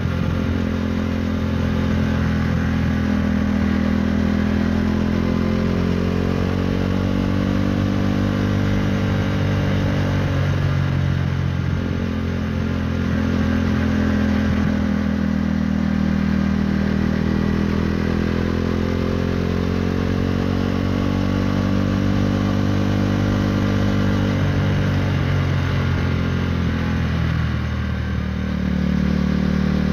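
KTM Duke 390's single-cylinder engine breathing through an Akrapovic Racing Line exhaust while riding. The engine note climbs and falls over and over with the throttle, and drops sharply about ten seconds in and again near the end.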